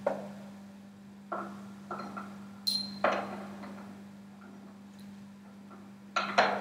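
Scattered light clicks and knocks from handling a marker pen and glass test tubes on a lab bench, in small clusters near the start, in the middle and near the end, over a steady low hum.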